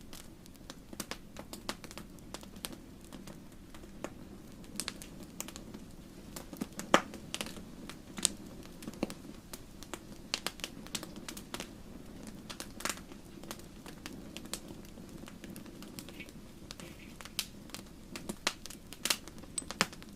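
Wood fire crackling: irregular sharp pops and snaps over a steady low rumble of burning, with one louder pop about seven seconds in.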